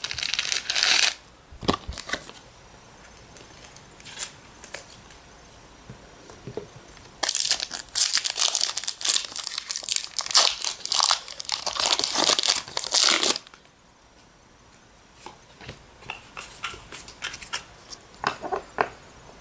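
Pokémon card booster pack packaging being torn open and crinkled: a short rip at the start, then several seconds of dense crackling and tearing in the middle, followed by a few light clicks near the end.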